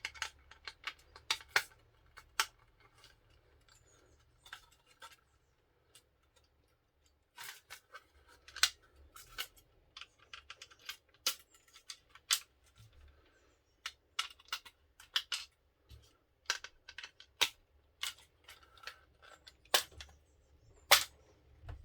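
Irregular sharp clicks and taps of small hard RC kit parts being handled, dropped in and fitted together by hand, with a few louder clicks late on.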